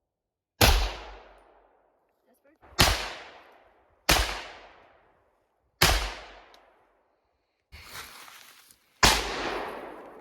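Five single gunshots fired one at a time with uneven gaps of about one to three seconds, each ringing off in a long echo. A weaker, duller noise sits between the fourth and fifth shots.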